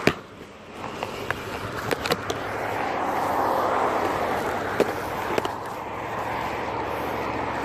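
Phone being handled, with fingers knocking and rubbing near the microphone in several sharp clicks, over road traffic noise that swells in the middle as a vehicle passes.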